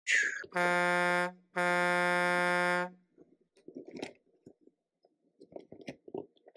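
A horn sounding twice with a steady, buzzy pitch, a short blast and then a longer one, after a brief hiss at the start; faint clicks and taps follow.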